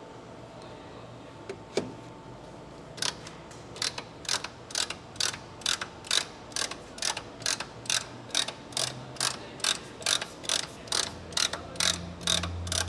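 Hand rivet-nut (nutsert) tool being worked to set a rivet nut in the radiator support, its ratchet clicking evenly at two to three clicks a second from about three seconds in.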